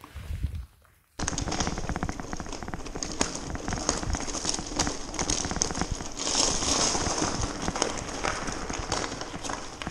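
Bicycle tyres crunching over a loose gravel track, a dense crackle of small clicks with the bike rattling, starting abruptly about a second in.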